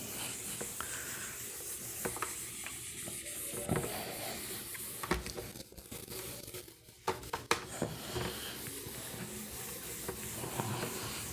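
Handheld whiteboard eraser rubbing across a whiteboard, wiping off marker writing, with a short lull and a few light knocks a little past the middle.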